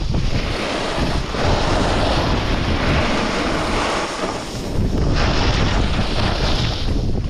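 A snowboard's edges hissing and scraping over groomed snow, with wind rumbling on the microphone. The scrape swells about a second in and again around five seconds in, with a brief lull between.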